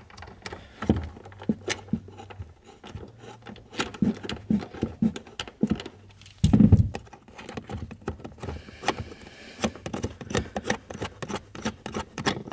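Socket ratchet with a T40 Torx bit clicking in quick runs as it backs out bolts in the car's trunk, with a dull thump about six and a half seconds in.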